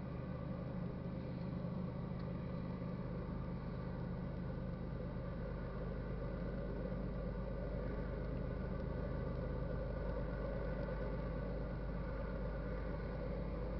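An engine idling steadily: a low, even hum of several steady tones that grows slightly louder a few seconds in.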